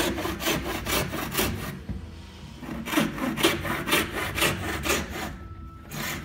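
Wooden frame saw cutting through wood in quick back-and-forth strokes, with a short pause about two seconds in.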